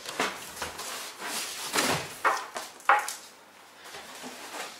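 Cardboard boxes and packaging being handled and moved: a few short scraping rubs and dull knocks of cardboard.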